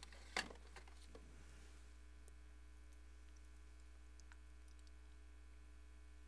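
Near silence under a steady low electrical hum, with a few light clicks in the first second.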